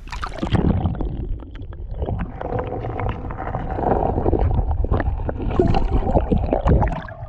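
Water sloshing and gurgling over a GoPro action camera dipped underwater in a shallow river, heard muffled through the submerged housing, with many small knocks and bubbles.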